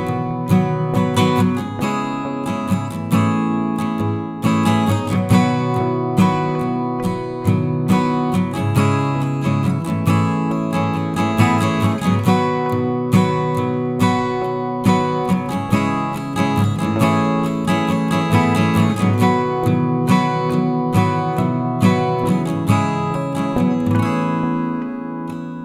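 Background music: acoustic guitar strummed and picked in a steady rhythm, easing off slightly near the end.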